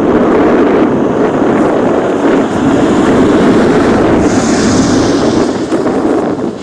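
Norfolk & Western No. 475 steam locomotive working toward the microphone, its exhaust a loud, steady, rough rush, with wind buffeting the microphone. A brief higher hiss comes in about four seconds in.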